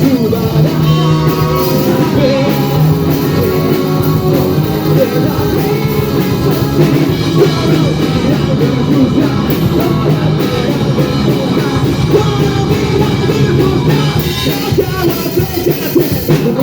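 Rock band playing loud music, with drums, guitars and singing.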